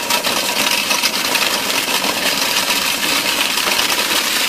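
Electric stainless-steel food chopper running steadily, its blades chopping chunks of pork in the steel bowl with a rapid clatter.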